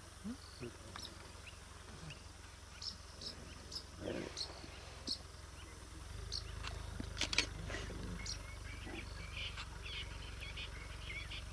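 Quiet African bush ambience: scattered short, high chirps of birds and insects over a low steady hum that grows louder about halfway through, with a couple of sharp clicks.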